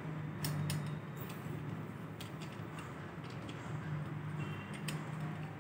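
Faint, scattered small clicks and ticks as a plastic phone-holder clamp is screwed onto a tripod's mounting screw, over a steady low hum.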